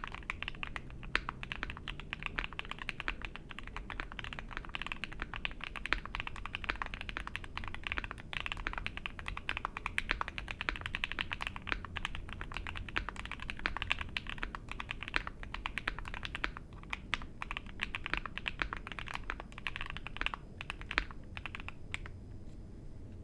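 Continuous fast typing on a gasket-mount ai03 Vega 65% mechanical keyboard with lubed Alpaca V2 linear switches on a polycarbonate plate, foam-dampened, with GMK keycaps: a dense run of keystrokes. The typing stops about a second before the end.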